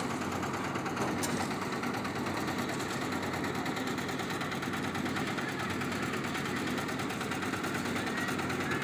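Concrete mixer's engine running steadily.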